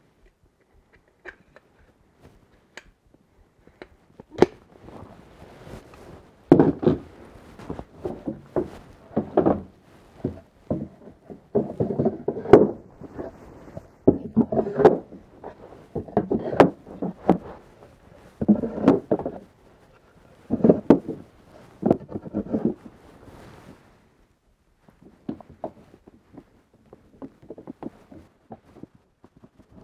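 Wooden hive-super boards knocking and clattering as they are handled and fitted together on a workbench: clusters of short wooden knocks with a few sharp cracks, busiest through the middle and quieter near the end.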